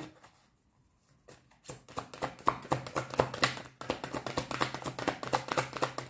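A deck of oracle cards being shuffled by hand: a quick run of light card clicks that starts about a second and a half in.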